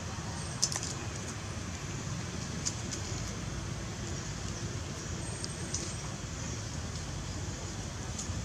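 Steady outdoor background rumble and hiss, with a few short faint high clicks, the sharpest about half a second in.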